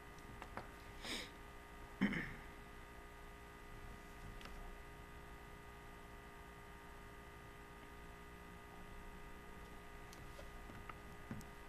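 Faint room tone with a steady low hum, picked up by a computer microphone. Two brief soft sounds come about one and two seconds in, otherwise nothing stands out.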